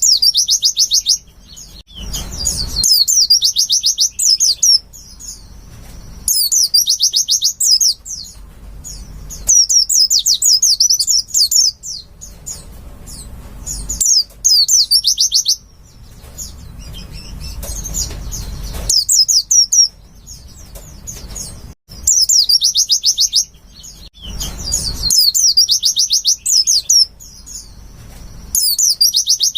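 White-eye (pleci) singing: repeated bursts of rapid, high trilled chatter, each lasting about a second, coming every two to three seconds over a faint low rumble.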